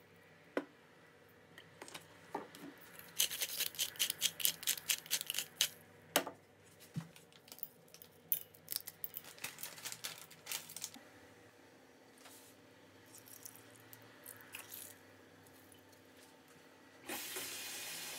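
Ingredients going into a stainless steel bowl of raw chicken pieces: a fast run of light clicks and taps through the middle, then sparser ticks. A short steady hiss comes just before the end.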